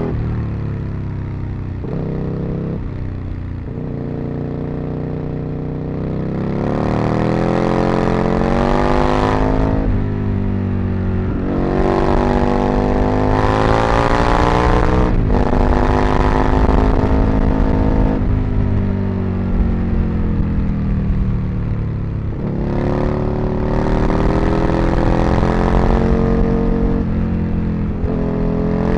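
Aprilia RSV Mille's V-twin engine and exhaust accelerating through the gears. The revs climb several times, and each climb ends in a sudden drop at a gear change, with spells of steadier running between.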